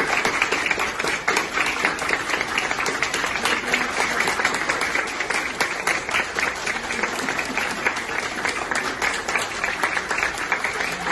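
A group of people applauding steadily in a hospital corridor, many hands clapping at once.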